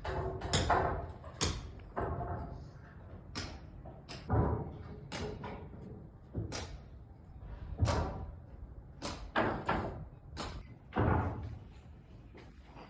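An irregular series of knocks and bangs, about a dozen, each with a short ringing tail.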